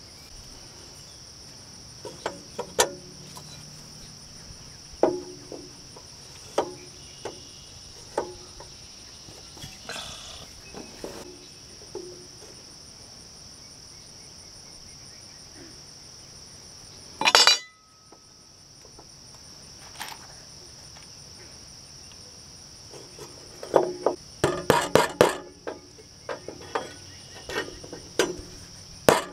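Claw hammer driving nails through a metal joist hanger into a wooden floor joist: scattered knocks and clinks early on, one loud knock past the middle, and a quick run of hammer blows near the end. Crickets chirp steadily throughout.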